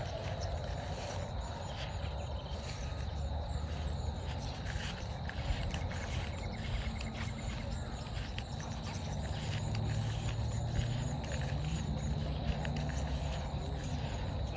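Outdoor evening ambience: insects chirping in many short ticks over a steady low rumble that swells slightly near the end.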